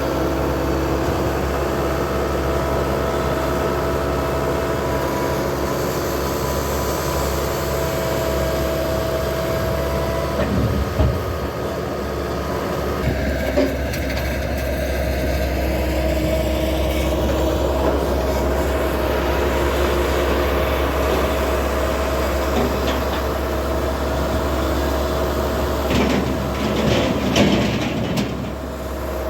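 A vehicle runs along with a steady engine and road hum, its pitch shifting about eleven seconds in. A few short knocks come near the end.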